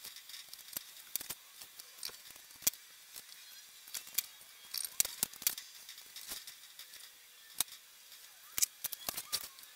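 Thin masking tape being pulled off the roll and pressed down onto a painted motorcycle fuel tank: faint, irregular clicks and crackles, a few sharper ticks near the end.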